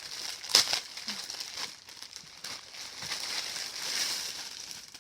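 Packaging crinkling and rustling as a parcel is opened by hand, with a sharp crackle about half a second in.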